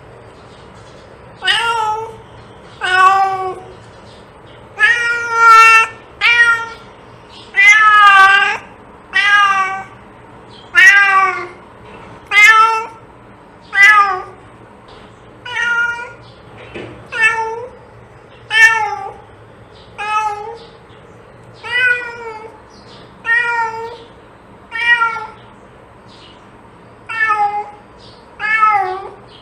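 A domestic cat meowing again and again, about twenty meows spaced roughly a second and a half apart. Each meow is short and bends in pitch.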